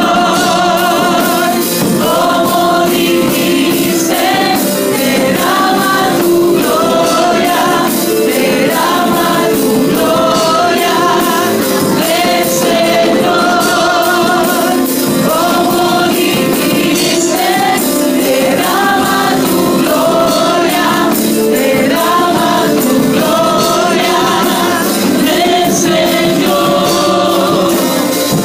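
Church congregation singing a Spanish-language worship song with a live band, the sung melody carried over a steady drum beat.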